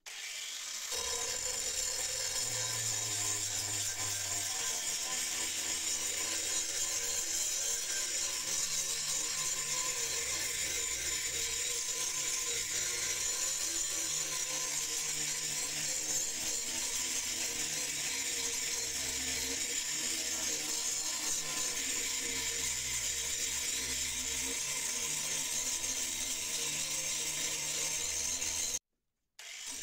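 Electric angle grinder running steadily with its disc grinding rust off the steel blade of an old meat cleaver. The sound cuts out briefly near the end.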